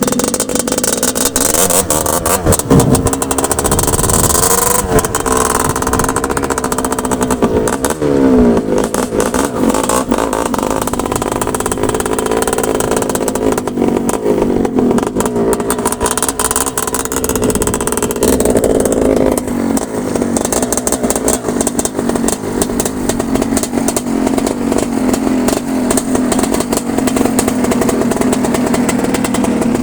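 Agrale engine running loudly, revved up and down a few times in the first several seconds, then running at a steady speed.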